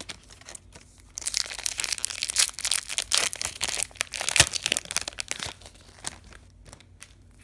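Foil Yu-Gi-Oh! booster pack wrapper crinkling and tearing as it is opened, a dense crackle from about a second in until past the middle, then a few light rustles as the cards are handled.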